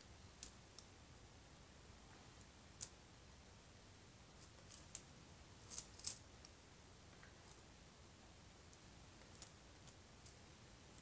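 Quiet room tone broken by about a dozen small sharp clicks at irregular intervals, the loudest pair about six seconds in.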